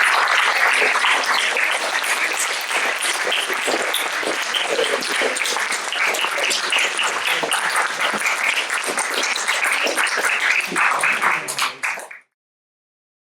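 Audience applauding, thinning to a few scattered claps near the end, then cutting off suddenly.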